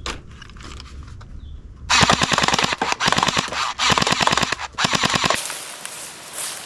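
Rapid automatic gunfire, about ten shots a second, in several bursts with brief breaks, cutting off abruptly; afterwards a steady background hiss.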